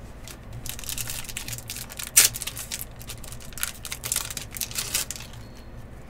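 Foil wrapper of an Upper Deck Artifacts golf card pack torn open and crinkled by hand: a quick run of sharp crackles and snaps, the loudest about two seconds in, easing off near the end as the cards come out of the pack.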